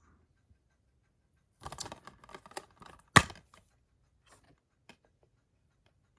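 Plastic Blu-ray case being handled and opened: a run of crackles and clicks with one sharp snap about three seconds in, then a few faint ticks.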